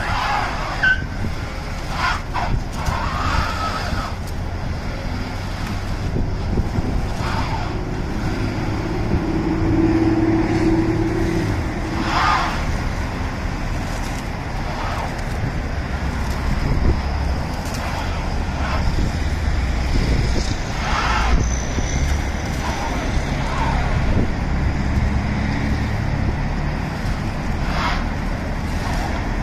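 Vehicle engine running, its low rumble rising and falling in strength, with a few short, sharp sounds over it.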